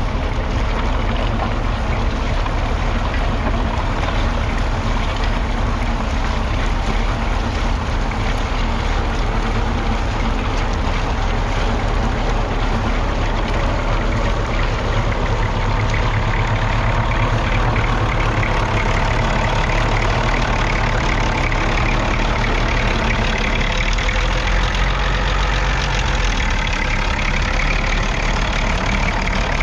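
Six-cylinder Perkins P6 diesel engine of a Fordson Major E27N tractor running steadily.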